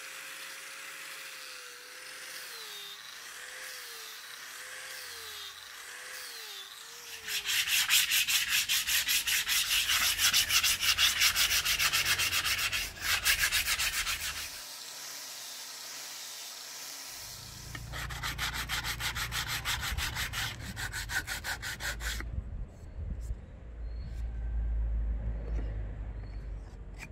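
Sanding of a wooden axe handle made of Millettia leucantha: two spells of quick, rhythmic rubbing strokes, the first starting about seven seconds in and the longer of the two, the second shorter. A quieter low rumble follows near the end.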